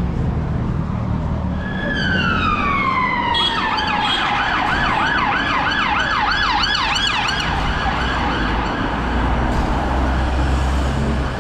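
Emergency-vehicle siren: a long tone sliding down in pitch about two seconds in, then switching to a fast warbling yelp of about two to three cycles a second that fades away near the end, over a low rumble of road traffic.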